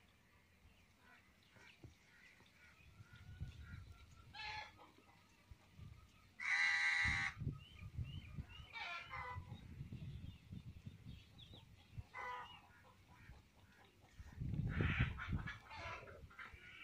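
Chickens clucking and calling: several short calls, the loudest one about six and a half seconds in, with patches of low rumbling noise between them.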